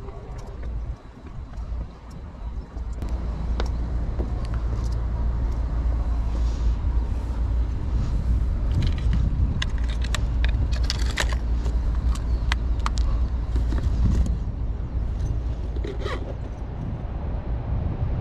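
Wind rumbling on the microphone, with a run of sharp clicks and rattles in the middle as fishing tackle is handled in a bag.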